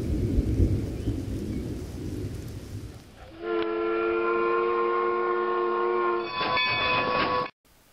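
Low rumbling thunder with rain for about three seconds. Then a steam locomotive whistle blows one long steady note of several tones at once, which turns ragged near the end and cuts off suddenly.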